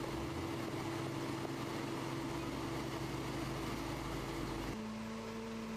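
Engine of a slipform curb and gutter paving machine running steadily, with a constant hum over machinery noise. The engine note changes abruptly about five seconds in, to a different steady hum.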